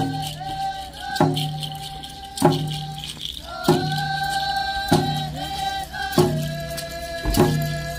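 Traditional Indigenous song for dancing: voices hold long notes over a drum beaten steadily, about once every 1.2 seconds.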